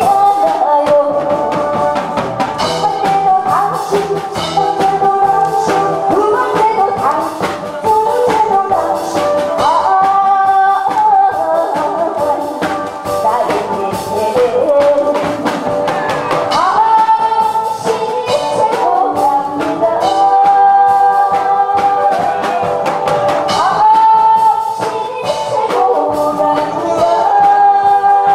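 A woman singing through a handheld microphone over backing music with a steady drum beat, holding long notes.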